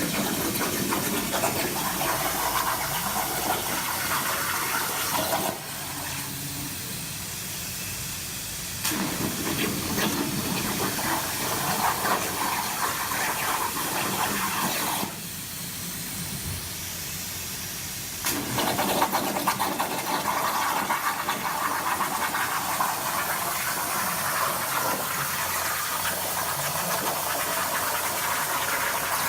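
CNC plasma cutter torch cutting, a loud steady hiss that runs in three stretches, stopping for about three seconds twice between cuts.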